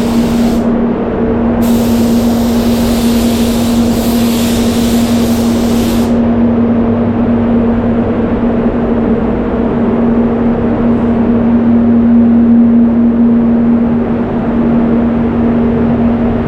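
Spray booth extraction fan running with a steady hum, while a spray gun hisses with compressed air as clear coat is sprayed; the hiss stops briefly about a second in, then runs until about six seconds in and cuts off, leaving the fan alone.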